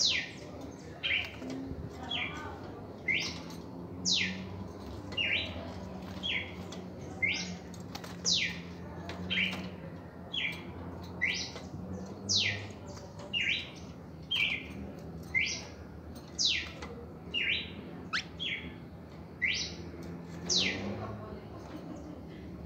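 Red-crested cardinal singing a steady run of sharp whistled notes, about two a second. A short lower note alternates with a longer one that sweeps down from high.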